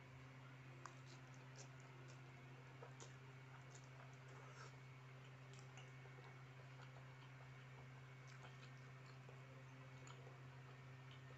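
Near silence: faint, scattered clicks of chewing and eating instant fried noodles, with a fork touching a plastic bowl, over a steady low hum.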